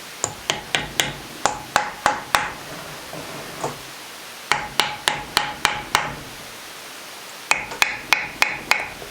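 A rubber dead-blow mallet with no shot left in it tapping the cylinder of a 1979 Suzuki DS125 two-stroke engine to work the cylinder loose. The taps come in three quick runs of six to eight, each with a short ring.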